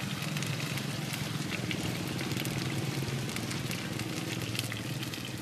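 Chive cakes frying in oil in a large flat pan: a steady crackling sizzle of many fine pops, over a low steady drone.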